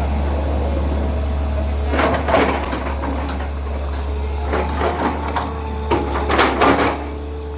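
Hitachi excavator's diesel engine running steadily, with bursts of metal clanking and rattling from the working machine about two seconds in, again around five seconds, and near the end.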